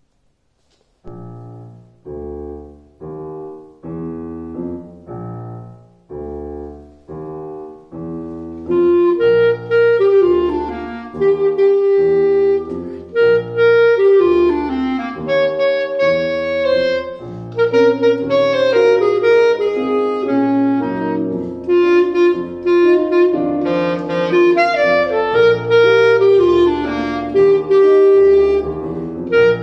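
Clarinet and grand piano duet. The piano plays alone at first, evenly repeated chords about once a second, each fading away; the clarinet comes in with the melody about nine seconds in and plays over the piano from then on.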